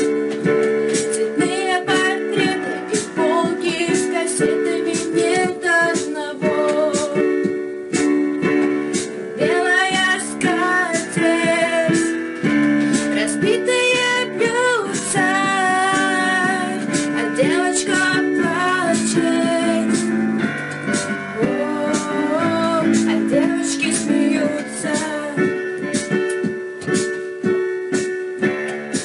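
A song: a woman singing with vibrato over sustained keyboard chords.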